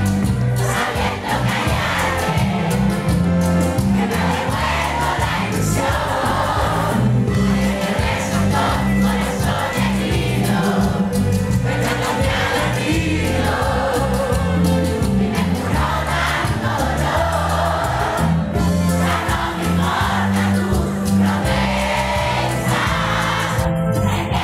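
Live cumbia band playing loudly with a strong, steady bass line, and many voices singing along together over it.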